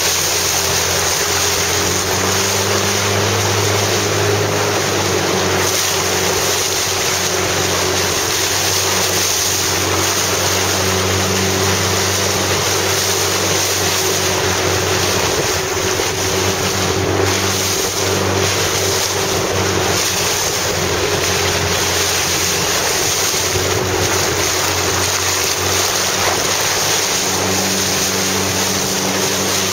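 Motorboat engine running steadily at constant speed, under loud wind noise on the microphone and rushing, splashing water.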